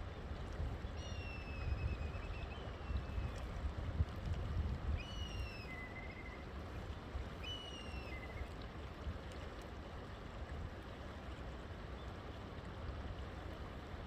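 River water running steadily, with a bird calling three times in the first half. Each call is a whistled note sliding downward in pitch, ending in a short trill.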